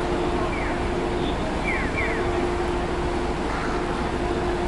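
Scania N280UB city bus idling at a stop with a steady hum, its door open for boarding. A few short falling chirps sound about half a second and two seconds in.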